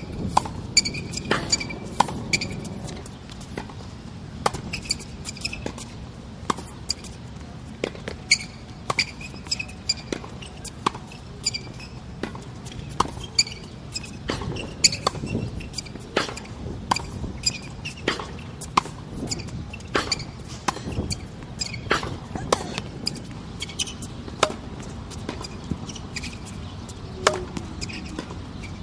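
Tennis balls being struck by rackets and bouncing on the court in a run of sharp pops, several a second, with short high squeaks of sneakers on the court surface in between.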